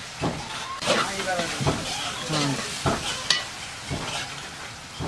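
A metal spatula scrapes and stirs duck curry in a black iron kadai, with a run of scrapes against the pan about every half second to a second. The curry sizzles underneath.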